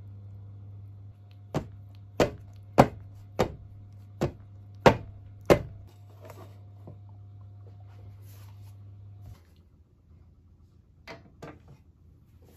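Seven sharp knocks in about four seconds, evenly spaced: a round metal cake pan full of batter being rapped down on the baking tray to settle the batter and knock out air bubbles before baking. Two softer knocks follow near the end.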